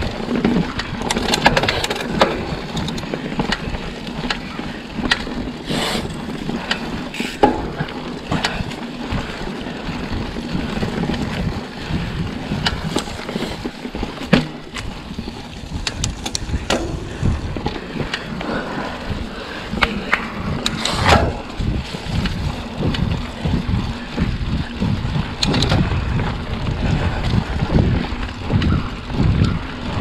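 A Trek Fuel EX 8 full-suspension mountain bike riding a dirt trail: steady tyre noise with frequent clicks and rattles from the bike, and gusty wind buffeting on the microphone that grows stronger in the second half.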